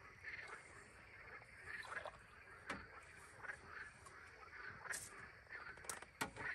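Frogs croaking faintly from the lake, short calls repeating irregularly, with a few sharp clicks in the second half.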